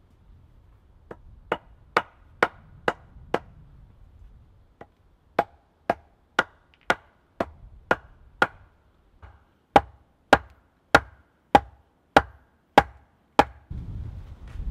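A wooden mallet knocking down on the top of a wooden stake, driving it into the ground: three runs of sharp, woody knocks at about two blows a second, with short pauses between them.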